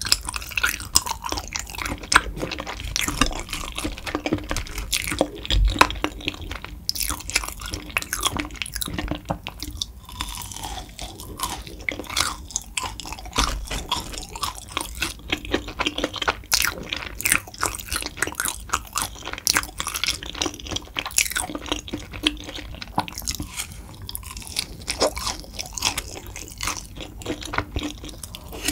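Close-miked eating of tteokbokki: wet, sticky chewing of rice cakes in sauce, with many quick clicks and crunchy bites.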